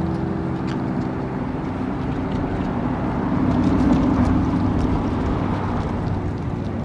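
Federal Signal Model 7 rotating mechanical outdoor warning siren sounding the steady alert tone. The sound swells to its loudest about four seconds in and then eases off again as the rotating horn sweeps past.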